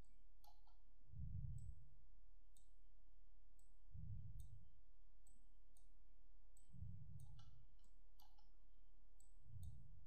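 Computer mouse buttons clicking at irregular intervals, a couple of times a second, with soft low swells about every three seconds.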